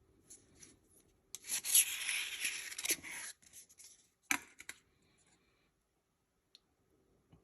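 Sour cream being dabbed onto a plate of nachos: a rubbing, scraping noise for about a second and a half, then a sharp click and a few light ticks.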